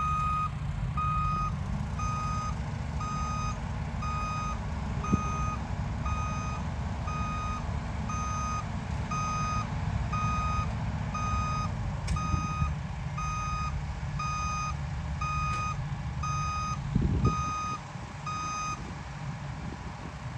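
A vehicle's reverse alarm beeping steadily about once a second over a running engine. The beeping stops shortly before the end, and the engine noise drops away at about the same time.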